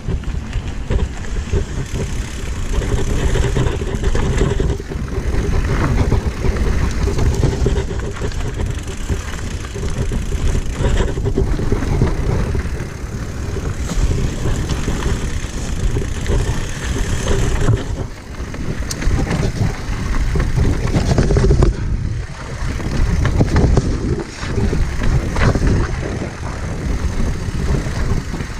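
Mountain bike descending a dirt trail: wind buffeting the microphone over a steady rumble of tyres on rough ground, with scattered knocks and rattles from the bike.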